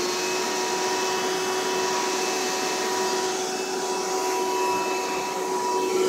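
Kenmore Progressive bagged upright vacuum, a Panasonic-made machine, running steadily: a rush of air under a steady motor whine with a few held tones. Its brush roll is not turning because the drive belt is missing or broken.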